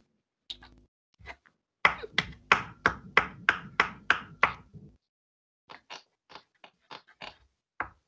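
Foley knocks standing in for a horse's hoofbeats: a run of about ten sharp clops, roughly three a second, over a low rumble. Fainter, lighter clicks follow near the end.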